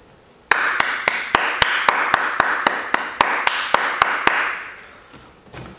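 Applause for a standing ovation: a man's sharp hand claps, about four a second, over a steady wash of clapping. It starts suddenly about half a second in and fades out after about four and a half seconds.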